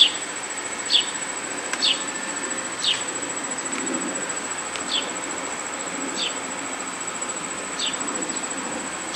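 Insects chirping: a short, high, falling chirp about once every second or two over a steady high-pitched trill.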